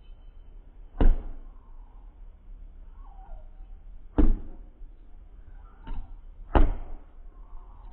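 A basketball bouncing hard: three loud single bounces a few seconds apart, with a lighter thump just before the last one.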